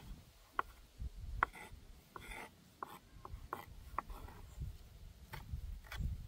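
Chef's knife chopping herbs on a bamboo cutting board: uneven knocks of the blade on the wood, about two a second.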